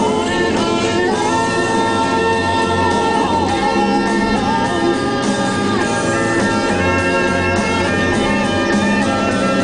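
A rock-style song with singing over instruments, playing throughout.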